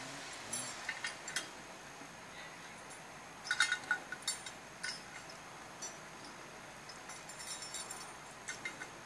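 Scattered small metallic clinks and knocks as a choker cable and its fittings are handled and fastened around the end of a felled log, with a quick flurry of them about three and a half seconds in.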